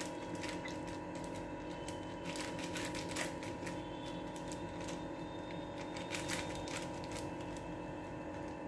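Thin plastic sheet crinkling and crackling in irregular little clicks as a hand presses and spreads stuffed flatbread dough across it, over a steady background hum.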